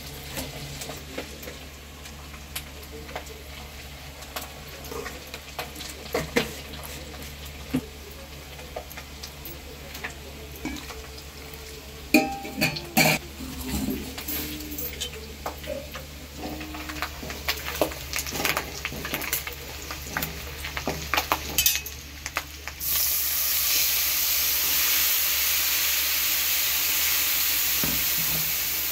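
Steel utensils clinking and knocking: a spoon against a steel mixer jar of ground masala paste, in scattered taps. About three-quarters of the way through, a loud steady sizzle starts suddenly as the wet masala paste hits hot oil in an iron kadai.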